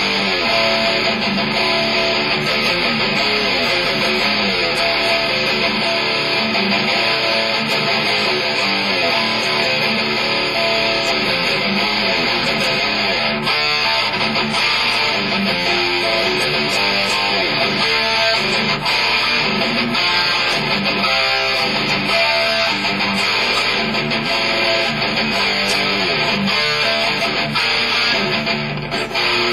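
Electric guitar played continuously through a guitar amplifier, with a short dip in loudness near the end.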